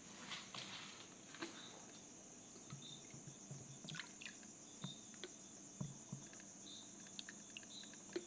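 Near silence: faint room tone with a steady high whine and a few soft ticks.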